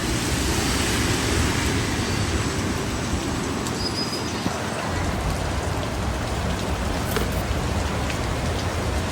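Heavy rain falling steadily, with road traffic underneath.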